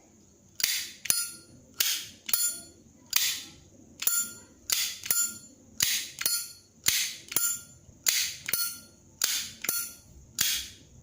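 Solid brass Zippo 204B lighter lid being flicked open and snapped shut again and again, a pair of sharp metallic clicks about once a second. Each click rings briefly like a small bell, the ring that comes from its hollow hinge pin.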